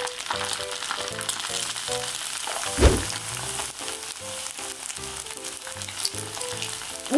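Batter-coated udon noodles deep-frying in hot oil: a steady crackling sizzle, with a low thump near the middle.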